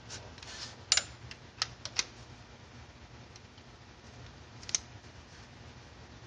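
Hand wrench and socket working the water pump bolts, a quarter turn at a time: a few sharp metallic clicks and clinks, bunched in the first two seconds with one more near the end.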